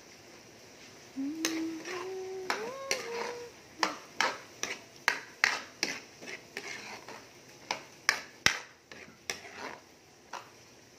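A metal ladle stirring meat and vegetables in a steel wok, clinking and scraping against the pan in a run of sharp knocks, about two a second. A woman hums a short tune briefly near the start.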